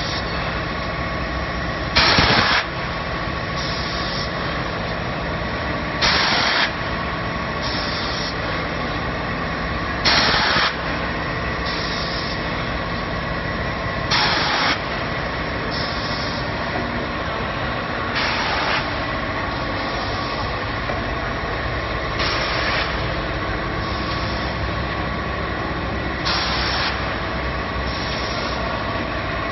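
Wafer production line machinery running steadily with a constant hum. A louder hiss of about half a second comes roughly every four seconds, and a shorter, thinner hiss falls midway between each pair.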